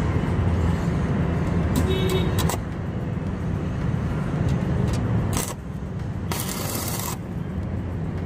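Electric arc welding on a car's cracked rear twist beam: the arc crackles and hisses in bursts, strongest about two seconds in and again for about a second near the end, over a steady low hum.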